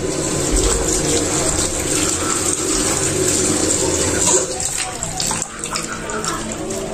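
Kitchen tap running into a plastic bowl of cut yardlong beans in a stainless steel sink, water splashing as hands stir and rub the beans to wash them. The splashing gets a little quieter about four and a half seconds in.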